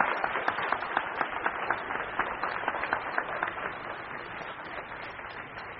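Audience applauding, many hands clapping at once, the applause thinning and fading out over the last couple of seconds.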